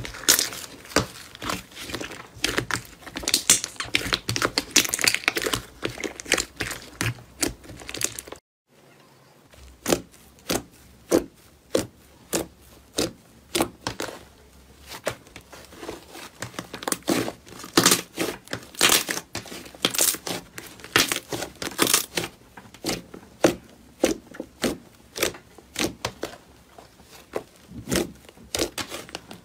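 Hand-worked slime giving quick sticky clicks and crackling pops as it is squeezed, stretched and pressed. About eight and a half seconds in it cuts out for a moment, then carries on with sparser, louder pops as a soft, thick slime is poked and folded.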